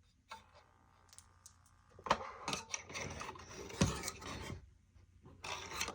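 Juno retrofit LED can light giving off a steady electrical buzz for about a second and a half, then rubbing, rattling and knocks as the fixture is handled against its can housing. The buzz comes when the light is held to the can, which the owner suspects is a grounding issue.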